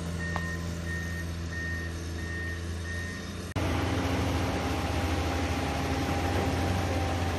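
Komatsu PC210 hydraulic excavator's diesel engine running steadily, with a machine's high electronic warning beeper sounding about three times every two seconds. Just past halfway it cuts sharply to a louder, rougher engine sound as the excavator digs into a dirt pile.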